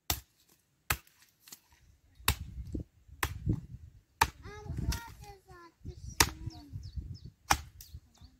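Axe chopping kindling on a wooden stump chopping block: about seven sharp chops at an uneven pace, roughly one a second.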